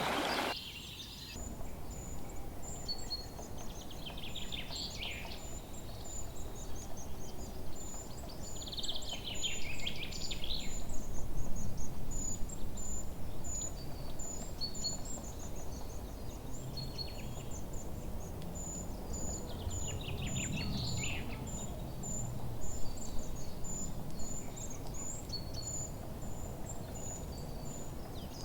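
Forest birdsong over a low steady rustle: a run of short, very high thin notes repeating throughout, with three louder descending trilled song phrases from songbirds. A brief rush of noise cuts off about half a second in.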